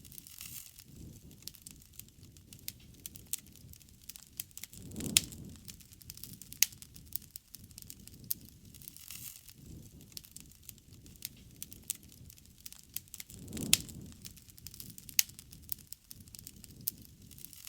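Wood campfire crackling, with frequent sharp pops and snaps over a low rumble of flame that swells twice, about five seconds in and again near fourteen seconds.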